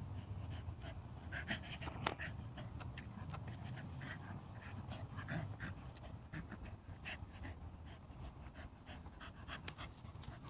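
A dog panting, with short rustles in the grass as it rolls on its back and moves about.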